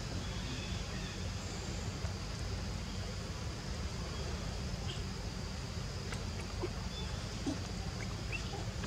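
Steady forest background: a low rumble of wind on the microphone under a high, even insect hum, with a few faint short chirps in the second half.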